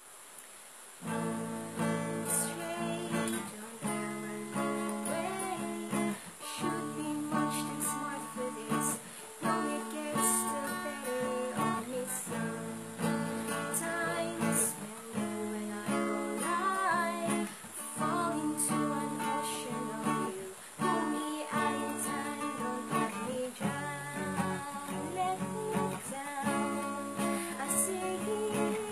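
Yamaha acoustic guitar strummed and picked in steady chords, starting about a second in, with a woman singing along.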